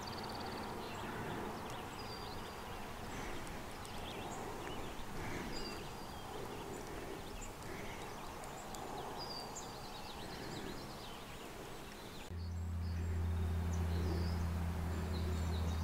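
Quiet evening outdoor ambience: a bird repeats a short high chirp every second or two over faint background noise. About twelve seconds in, the sound cuts abruptly to a steady low hum.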